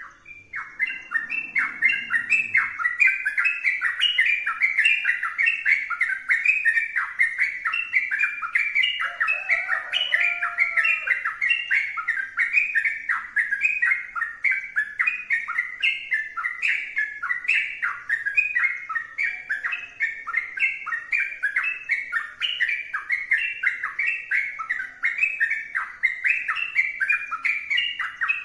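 Yellow-vented bulbul (trucukan) singing continuously: fast, bubbling phrases repeated over and over without a break.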